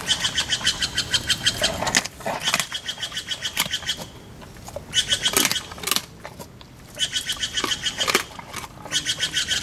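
Spotted hyaena crunching and cracking a bone in its jaws, with a sharp crack now and then. Bursts of a fast, even chatter of about ten pulses a second come and go alongside it.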